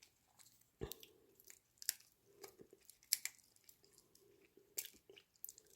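Microwave-roasted ginkgo nuts being shelled and eaten: a few faint, sharp cracks of the split shells about a second apart, with soft chewing between.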